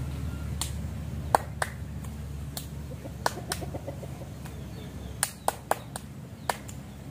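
About a dozen sharp, irregular snaps and clicks over a steady low rumble, bunched in the first four seconds and again near the end.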